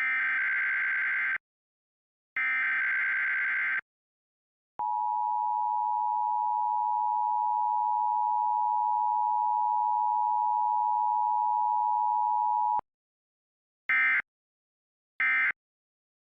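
Emergency Alert System test tones: two SAME header data squawks, each a harsh warbling digital screech about a second and a half long, then the two-tone EAS attention signal held steady for about eight seconds and cut off sharply. About a second later come the first two short end-of-message squawks, a second or so apart.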